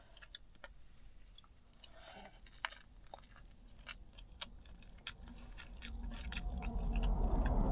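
Close chewing and biting with small wet mouth clicks as someone eats a barbecued chicken drumstick. A low rumble swells over the last few seconds.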